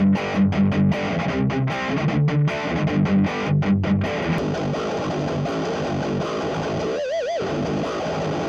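Electric guitar played through a Vox combo amplifier: short, stop-start chord hits for about four seconds, then sustained ringing chords, with one bent note wavering in vibrato about seven seconds in.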